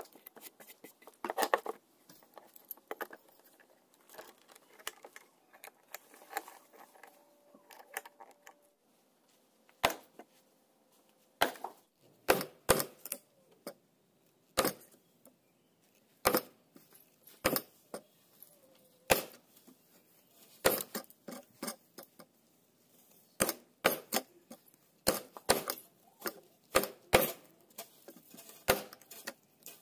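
Chisel chopping out the waste between saw kerfs in a clamped wooden block: sharp, irregular knocks, a few scattered at first, then coming in quick runs from about halfway.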